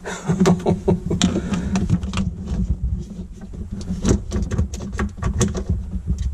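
Hands working hoses and fittings in a jet ski engine bay: irregular clicks, taps and rubbing, over a steady low hum.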